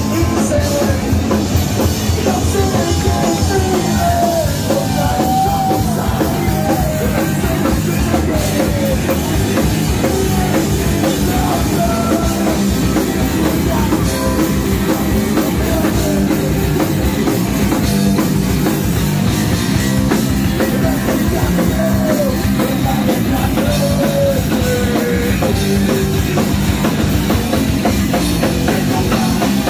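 Live rock band playing loud: drum kit driving a steady beat under electric guitar and bass, with vocals sung into a microphone over the top.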